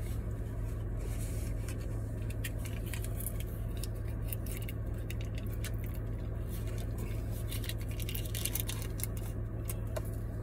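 Many small crackles and ticks of a foil-lidded dipping-sauce cup being handled and its lid peeled back, over a steady low hum inside the car.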